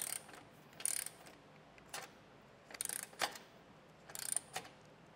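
Milwaukee Fuel cordless ratchet clicking in short bursts about once a second while a bolt is snugged down.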